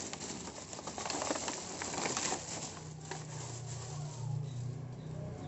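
Thin plastic bag crinkling and rustling as a boxed toy is pushed into it. About three seconds in the rustling fades and a low steady hum takes over.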